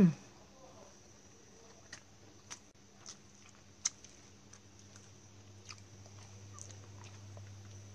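A brief, loud falling sound right at the start, then sparse faint clicks and taps of a bowl of dipping sauce and a rice-paper roll being handled as the roll is dipped, over a steady low hum.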